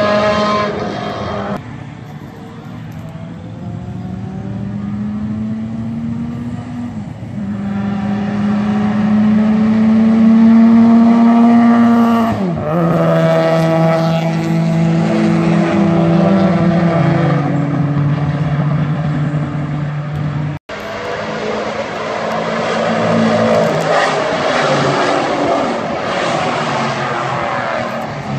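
Race car engine running hard, its pitch climbing steadily through the gears, then dropping sharply about twelve seconds in and stepping through several changes. The sound cuts out for an instant about twenty seconds in, then continues rougher and noisier.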